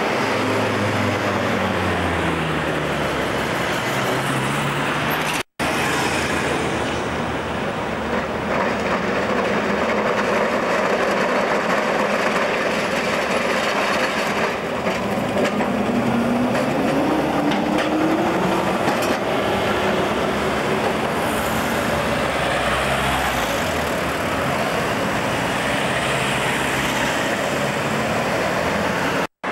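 Street traffic with a W class tram running along street tracks: a steady mix of road vehicle engine and tyre noise with the tram's rail sounds, and a rising whine about halfway through. The sound breaks off briefly about five seconds in.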